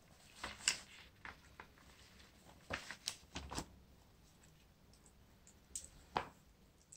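Faint, scattered rustles and soft taps of a paper instruction booklet being handled and closed, in a few short bursts.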